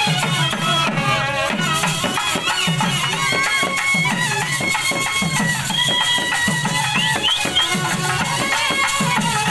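Live folk procession music: a drum beats a steady rhythm of about three strokes every two seconds under a high, wavering melody line.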